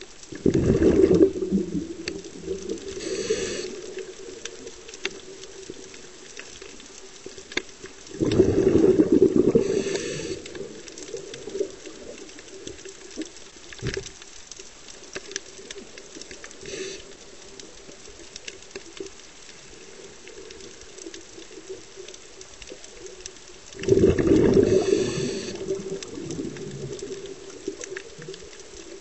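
Scuba diver breathing through a regulator underwater: three loud rumbles of exhaled bubbles, near the start, about eight seconds in and about twenty-four seconds in, with short hisses from the regulator between them.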